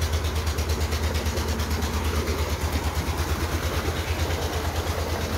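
A diesel engine running steadily, a fast even low thump with no change in speed.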